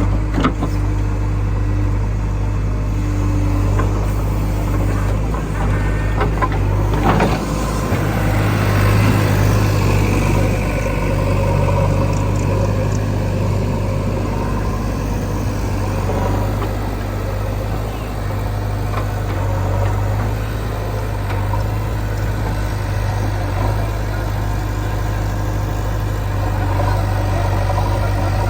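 Heavy diesel engine running steadily at a constant speed, with a brief cluster of knocks about seven seconds in.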